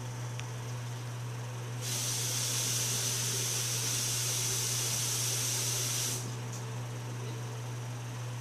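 A steady high hiss lasting about four seconds, starting and stopping abruptly, over a constant low electrical hum.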